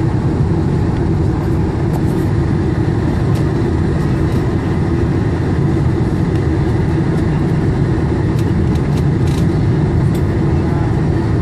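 Steady cabin noise of a Boeing 747-400 airliner descending to land: a constant low rumble of engines and airflow heard from inside the cabin.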